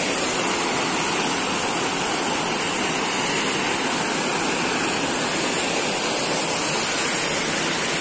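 Small waterfall cascading over rocks into a rocky stream: a steady rush of water.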